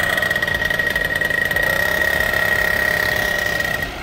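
120cc paramotor engine and propeller running steadily on a trike under taxi, with a strong steady high-pitched tone over the engine note. The sound drops off suddenly near the end.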